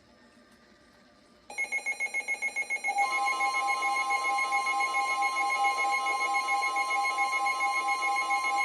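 Weather-radio emergency alert tone sounding ahead of a new tornado warning. After faint hiss, an electronic alarm starts about a second and a half in: rapid beeping at about eight a second, then from about three seconds in a continuous shrill alarm of several steady tones.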